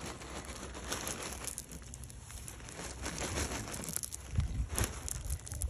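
Crinkling and rustling of a bag of Cheerios being handled as the cereal is shaken out, with a few low bumps about four seconds in.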